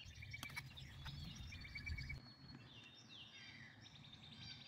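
Birds chirping and trilling in the background, faint. A few soft clicks of a paper packet being handled and opened.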